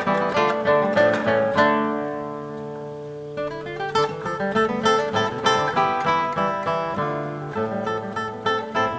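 Background music: a plucked-string instrumental in an early or Renaissance style, with quick picked notes, a held chord that rings out and fades about two seconds in, then brisk plucking again.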